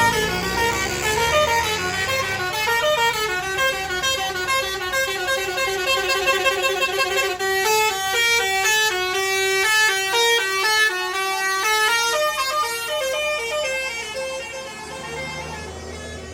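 Bus 'telolet basuri' musical air horn playing a fast, stepped melody of several notes at once, growing fainter near the end.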